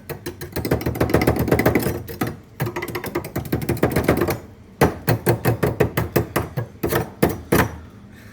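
Rapid runs of hard taps and knocks, many a second, with short breaks about two and a half and four and a half seconds in: a tool chipping and stabbing at the ice in a freezer to defrost it.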